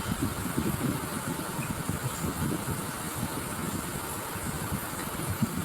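Steady rushing of a rocky mountain stream, with uneven low rumbling through it.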